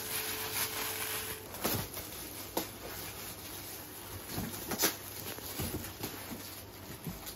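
Plastic gift bags and gift wrapping rustling and crinkling as they are handled and opened, with irregular short crackles and a few soft taps.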